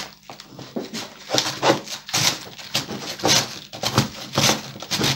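A cabbage half is pushed back and forth over the blade of a wooden hand cabbage shredder, slicing it into shreds. Each pass gives a short scrape, about two a second.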